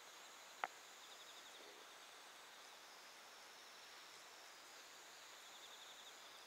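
Quiet outdoor ambience with faint insects chirping in rapid pulsed trills, and one sharp click less than a second in.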